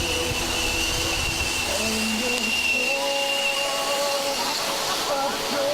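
Whistling firework giving one long, steady high whistle that stops about three seconds in, over music.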